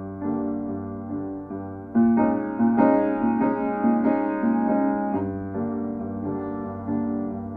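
Piano music: chords struck and left to ring. The playing grows louder and fuller about two seconds in, and eases back after about five seconds.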